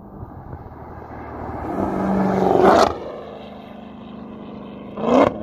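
Dodge Charger Hellcat's supercharged 6.2-litre Hemi V8, straight through catless mid-pipes with the mufflers deleted, driving past hard: the exhaust grows louder as the car approaches, then drops off sharply a little before halfway. A short loud burst of exhaust comes near the end.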